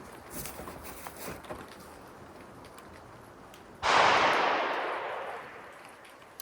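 A single rifle shot about four seconds in, ringing out and fading away over about two seconds, after a few faint clicks of handling.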